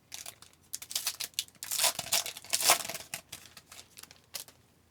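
A hockey card pack's wrapper being torn open and crinkled by hand: a run of uneven rips and rustles, loudest about two to three seconds in, fading out near the end.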